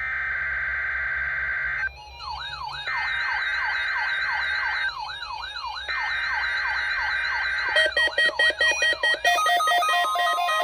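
NOAA Weather Radio SAME digital header for a Required Weekly Test: three harsh, steady two-tone data bursts of about two seconds each, a second apart. Under them a quieter warbling electronic siren sound repeatedly falls in pitch. About eight seconds in, a fast pulsing electronic tune with stepped tones takes over.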